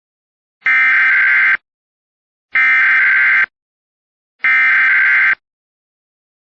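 Emergency Alert System SAME header: three loud bursts of buzzy digital data tones, each about a second long with about a second between them. They encode the alert's details, here a Required Weekly Test.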